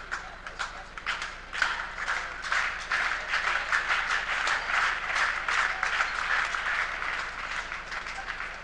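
Arena crowd clapping and applauding. It starts with scattered claps, swells about a second and a half in, and tails off near the end.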